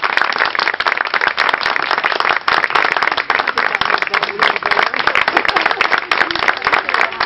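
A small crowd of guests applauding: many hands clapping quickly and steadily, without a break.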